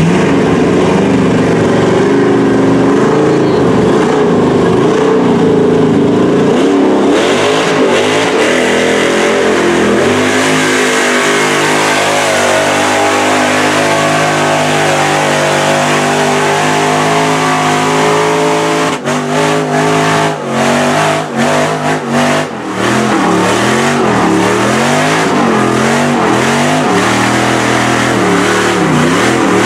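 LS V8 engine of a lifted Chevy Silverado mud truck on giant tires, revving hard as it churns through a mud pit, with the spray of slung mud. The engine pitch climbs and falls again and again, and the sound drops out briefly several times about two-thirds of the way through.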